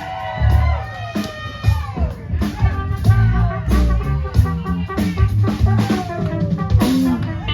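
A live rock band plays an instrumental passage: a drum kit with bass drum and cymbal hits under a steady bass line, and a lead guitar line whose notes bend and glide in pitch.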